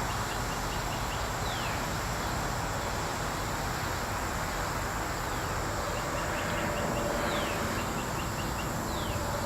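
Outdoor background of steady rushing noise under a constant high insect drone, with a bird singing the same short phrase several times: a quick run of about five high notes, then a falling slur.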